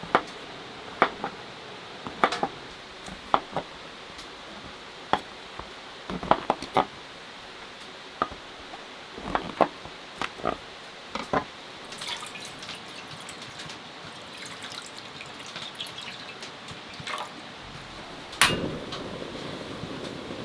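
Meal-preparation handling sounds: a string of sharp clicks and clinks of dishes and utensils, then a patter of liquid being poured or stirred, and one loud knock near the end.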